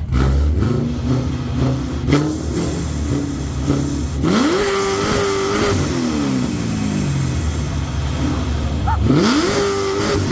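Performance car engine revved hard twice, each time climbing quickly to a held high rpm for a second or more and then dropping back to idle. A few sharp exhaust pops come from it while it idles between revs.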